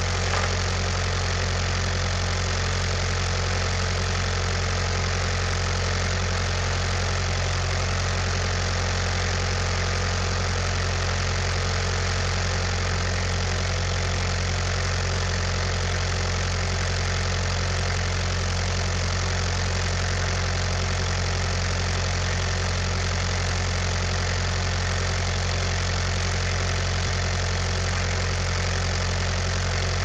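Skid steer's engine idling steadily, an even, unchanging hum.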